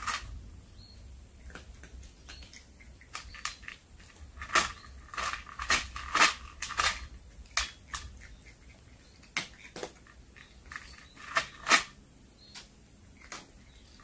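A tabby cat chewing on a small snake it has caught, its teeth making irregular sharp crunching clicks, thickest in the middle and again about three quarters through.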